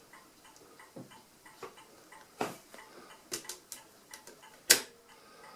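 Small metal parts of an Addo Multo Model 3 mechanical calculator clicking as the setting levers and number wheels are jiggled into line. The clicks are scattered and irregular, and the loudest is a sharp click near the end.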